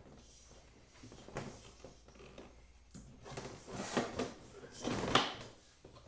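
A black plastic panel sliding down into the grooves of a reptile enclosure frame, scraping in short pushes, with one sharp knock about five seconds in.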